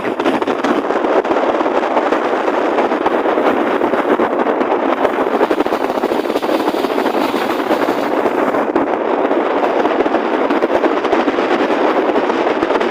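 Motorboat engine running steadily and loud, with a fast rattle.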